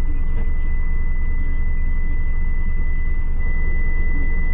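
Diesel truck engine idling: a steady low rumble with a faint, steady high-pitched whine over it.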